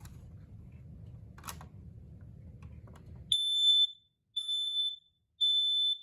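Kidde PI9010 dual-sensor smoke alarm sounding on test: three loud, high-pitched beeps about a second apart, starting about three seconds in, in the temporal-three fire-alarm pattern. A click comes before them, about a second and a half in.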